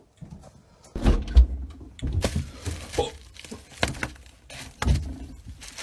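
Irregular knocks and thumps with a few sharp clicks, beginning about a second in.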